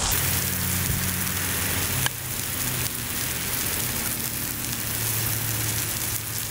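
Bacon frying in a titanium plate over an alcohol stove: a steady sizzling hiss of hot grease, with one sharp click about two seconds in.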